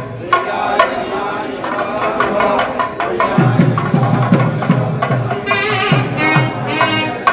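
Indian percussion music: deep drum strokes that drop in pitch, sharp higher strokes, and a held melodic line over them.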